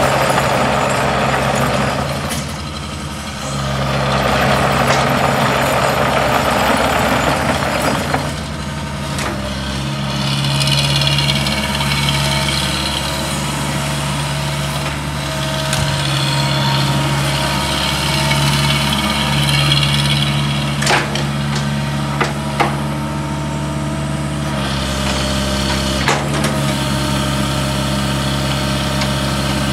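Sumitomo SH75 excavator's diesel engine running steadily while the machine slews and moves its boom and arm. A wavering high whine comes in around the middle, and a few sharp clunks come in the second half.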